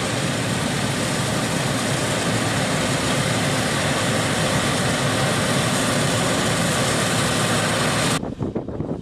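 Heavy farm machinery's engine running steadily, a dense even noise that cuts off abruptly about eight seconds in.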